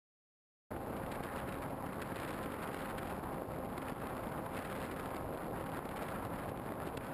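Wind rushing over the onboard camera of a radio-controlled model airplane in flight, with a faint steady hum from its motor. The sound cuts in suddenly about a second in, after a moment of silence.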